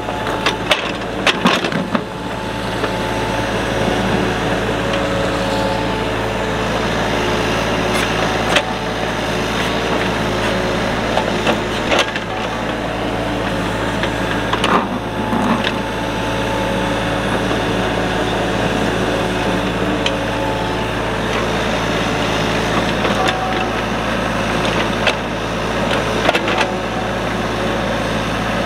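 Kubota mini excavator's diesel engine running steadily under digging load, with a scatter of sharp knocks and cracks from the bucket working the soil.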